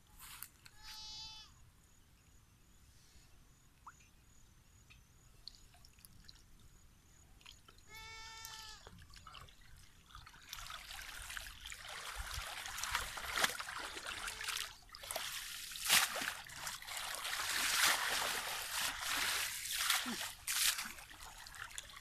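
Muddy shallow water splashing and trickling as a cast net is hauled in and gathered by hand, busy and uneven from about ten seconds in. Earlier, two short bleats from a farm animal, one near the start and one about eight seconds in.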